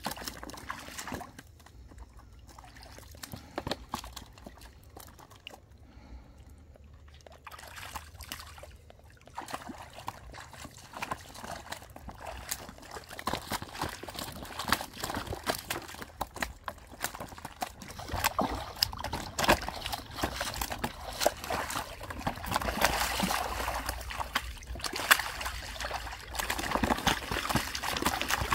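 Wading and splashing in shallow muddy water as fish are grabbed by hand: irregular sloshes, trickles and splashes. Sparse for the first several seconds, then busier and louder from about ten seconds in.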